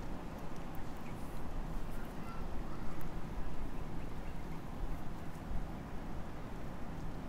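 Steady beach ambience: a low rumble of surf and wind, with a few brief, faint bird chirps in the first couple of seconds.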